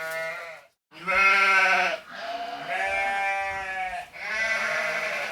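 Sheep bleating again and again: about four long, wavering bleats in a row, with a brief silent break after the first.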